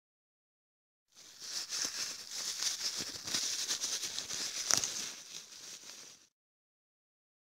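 A hissing, rustling noise with a few faint clicks, starting suddenly about a second in and cutting off suddenly near the end, with dead silence either side.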